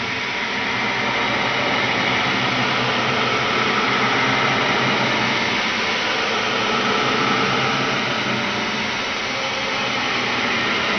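Steady, dense noisy drone with faint low humming tones running through it, a horror sound effect.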